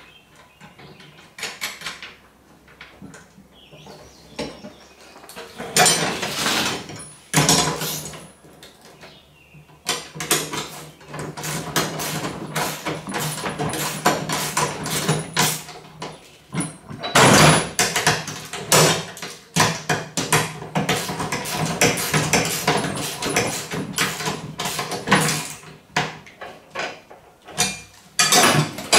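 Metal parts and bolt hardware being handled during assembly: irregular clicking, knocking and scraping, quiet for the first few seconds, then in busy stretches with a short lull near the end.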